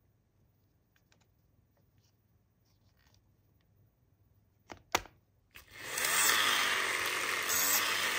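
Small plastic toy parts clicking as they are handled, then two sharp snaps as the doll goes onto the Magical Movers spinner base. About two thirds in, the base's wind-up gear mechanism starts a loud, steady whir.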